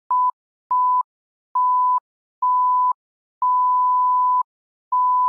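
Electronic beep tone at one steady high pitch, sounding six times, each beep longer than the one before. It goes from short blips to a long held tone that is still sounding at the end.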